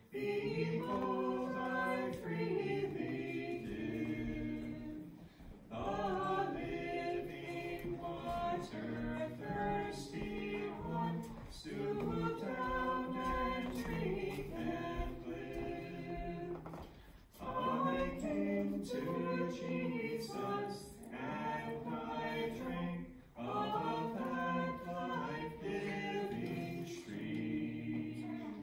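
A group of voices singing a hymn, the entrance hymn, in phrases of several seconds with brief breaks between them.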